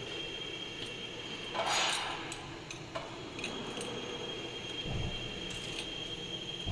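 Light metallic clinks and taps of tools and parts being worked on a machine, over a steady high whine. A short hiss comes about two seconds in, and a low thump near the end.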